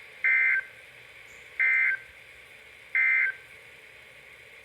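Three short bursts of NOAA Weather Radio SAME digital data, a rough two-tone warble, about 1.4 seconds apart from a weather radio receiver's speaker. These are the end-of-message codes that close the Special Marine Warning broadcast.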